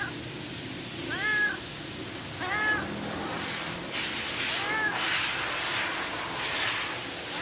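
Ginger tabby cat meowing for food: four short meows, each rising then falling in pitch, a second or two apart, the last about five seconds in. A faint hiss sits in the background in the second half.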